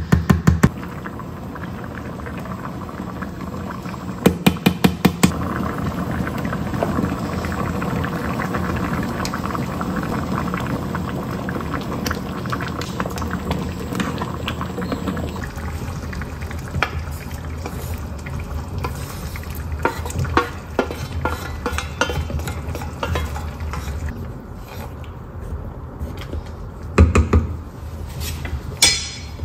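Thick Korean doenjang (soybean paste) stew simmering in a saucepan and being stirred with a wooden spoon, with a quick run of sharp taps about four seconds in and a couple of knocks near the end.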